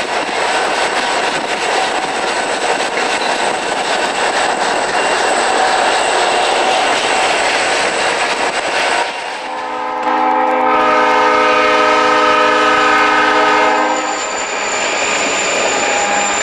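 EMD SD45-2 diesel locomotives, 20-cylinder two-stroke engines, passing close by with a steady rumble of engine and wheels. After a short drop about nine seconds in, a multi-note locomotive horn blows one long blast of about four seconds, warning for a grade crossing, and the train's rumble carries on.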